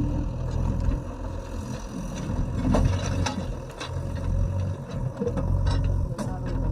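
JCB 3DX backhoe loader's diesel engine running under changing load, its low drone dipping and swelling a few times, with scattered sharp knocks and clatter.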